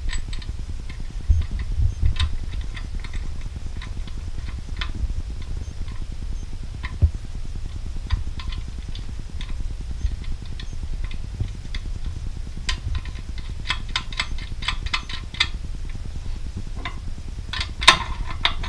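Light metallic clicks and taps as the lock's brass nut is threaded onto it by hand and the lock parts are handled, scattered at first, then coming thicker, with a denser run of clicks near the end. A steady low rumble runs underneath.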